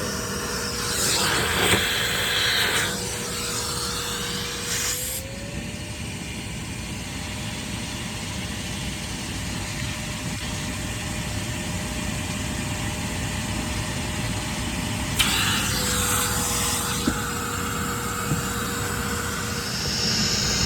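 Shop vacuum running on a clogged HVAC condensate drain, its suction rushing as it draws air and water. About five seconds in the airflow noise drops and the motor pitch rises as the nozzle seals against the drain; about fifteen seconds in the rush returns and the pitch falls back.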